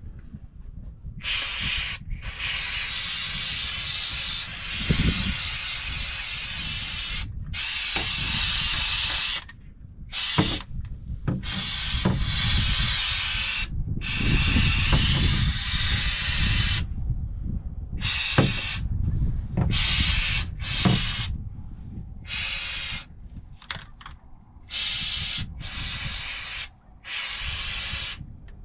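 Aerosol can of spray-on rubber coating hissing as it is sprayed. It starts about a second in with one long spray of several seconds, then many shorter bursts with brief pauses between them.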